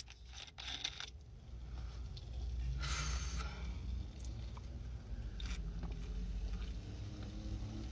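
Faint gulping and swallowing as a large cup of Sprite is chugged without stopping, with a few small clicks at the start and a short hissing breath or slurp about three seconds in.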